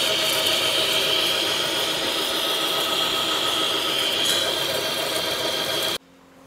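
Large metal lathe turning a steel cylinder under cut: a loud, steady machining noise with a high whine, which stops abruptly near the end.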